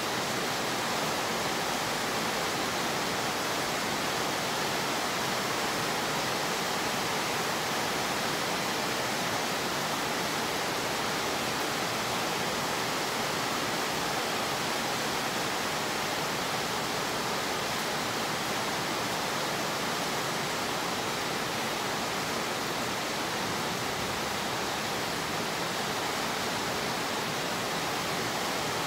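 Steady rain falling on a wet concrete yard: an even, unbroken hiss with no single drops or other events standing out.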